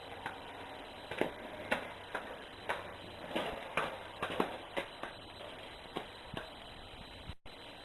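A series of light, irregular clicks and taps, roughly two a second, over a faint steady background; the sound drops out for an instant near the end.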